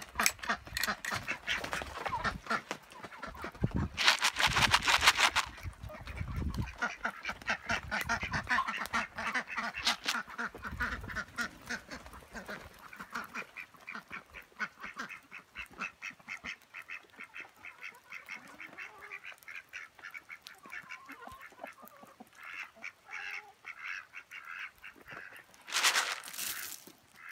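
Khaki Campbell ducks quacking in rapid, continuous chatter. Near the end comes a short hiss of grain feed poured onto the ground.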